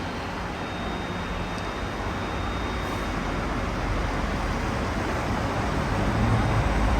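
Steady city road traffic noise with a low rumble, growing louder toward the end.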